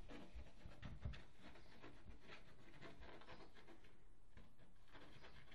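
Faint scratching and rustling of Korat kittens scuffling against a fabric pet carrier, with a light thump about a second in.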